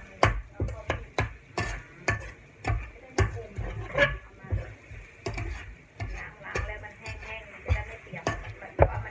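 Metal spatula scraping and tapping against a metal wok as minced garlic is stir-fried, in quick repeated strokes about two a second.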